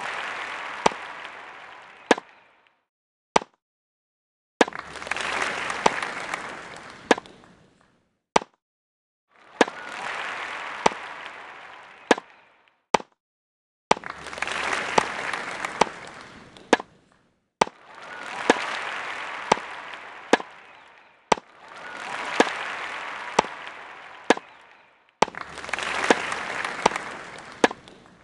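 Tennis ball strikes, single sharp pocks, each answered by a burst of crowd applause that starts suddenly and dies away over about three seconds; the cycle repeats about every four seconds.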